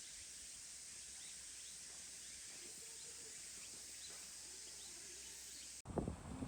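Faint outdoor nature ambience: a steady high hiss with short, faint rising chirps repeating every half second or so. About six seconds in it cuts abruptly to louder, gusty wind buffeting the microphone.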